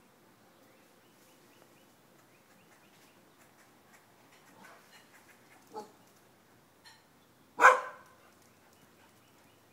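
A small dog barks once, short and loud, about three quarters of the way through, after a quieter yip about two seconds earlier.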